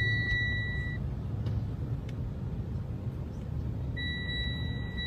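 Storm wind rumbling on the microphone, with a steady high-pitched electronic tone that cuts off about a second in and comes back near the end.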